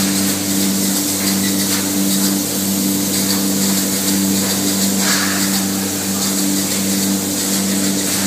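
Spray-foam gun hissing steadily as polyurethane foam insulation is sprayed into a spa cabinet, over a continuous two-tone hum from the foam rig's machinery; the hiss swells briefly about five seconds in.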